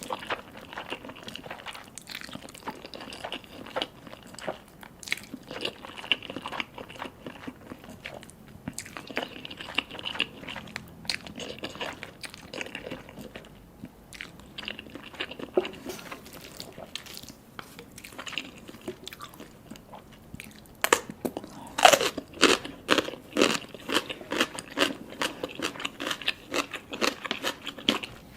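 Close-miked eating sounds: a person biting and chewing a meal of spicy instant ramen with fish balls and mini sausages, as a run of sharp, wet mouth clicks and crunches. The chewing gets louder and busier about three-quarters of the way through.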